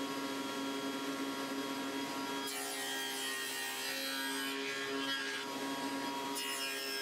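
Table saw running steadily while its blade cuts a dado across a solid black walnut board in repeated side-by-side passes, the rasp of the cut rising about two and a half seconds in and again near the end.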